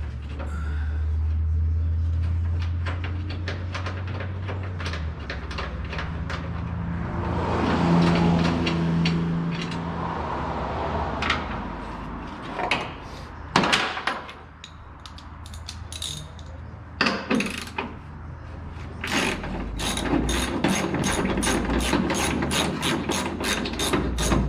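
Hand ratchet wrench clicking as bolts are backed out, with a quick, even run of clicks at about four or five a second over the last few seconds. Before that come scattered clinks and knocks, and a low hum in the first few seconds.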